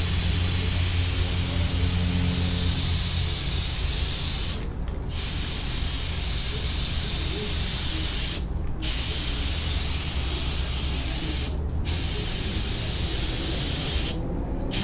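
Gravity-feed spray gun hissing as compressed air atomises primer, in long passes with four brief breaks where the trigger is let go, about every three to four seconds.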